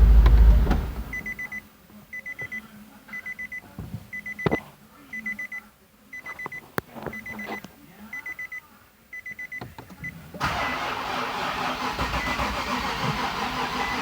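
Nissan 370Z engine running and then shutting off within the first second, followed by the car's warning chime beeping once a second for about nine seconds, with light clicks and knocks. Past the ten-second mark a steady mechanical running noise starts up and holds to the end.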